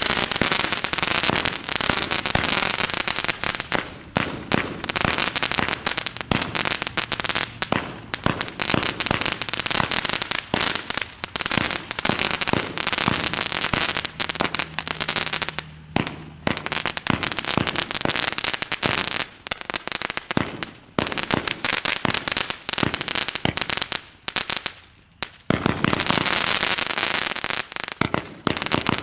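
Black Cat Southwest Fiesta firework cake firing: a dense, continuous run of cracks and pops from its shots, with short lulls about halfway through and again a few seconds before the end.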